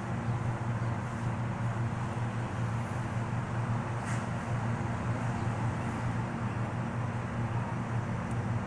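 Steady low mechanical hum of a running motor, unchanging throughout, with a single faint click about four seconds in.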